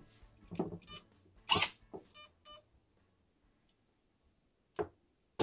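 Three short high bleeps with a loud sharp clatter among them in the first two and a half seconds, then a single knock near the end. The bleeps come from the wired-up airsoft gearbox electrics while the motor is handled.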